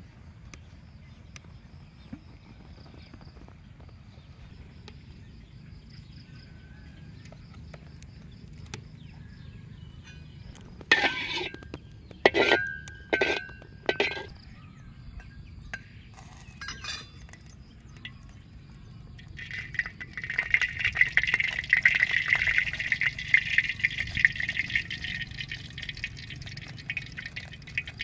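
A wok over a wood fire. About halfway through come several sharp metallic clinks with a short ring, spread over about three seconds. A steady hiss then rises from the wok and carries on to the end.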